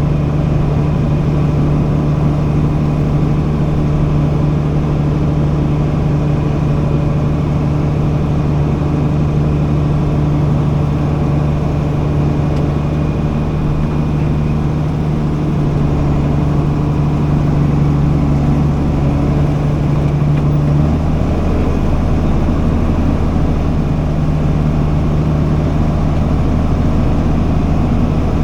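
Grain truck engine running steadily with an even low hum, its tone shifting slightly about 16 and 21 seconds in.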